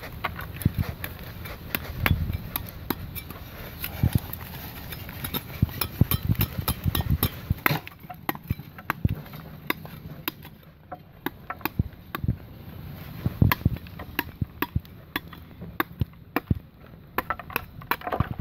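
Large knife blade hacking repeatedly into a tree trunk's bark, several chopping strikes a second with a short lull about ten seconds in.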